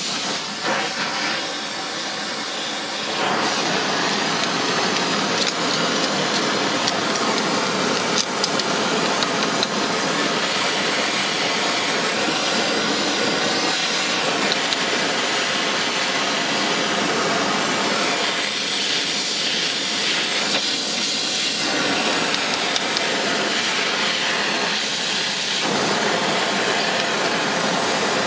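Gas torch flame hissing steadily as it heats a flywheel rotor, getting a little louder about three seconds in.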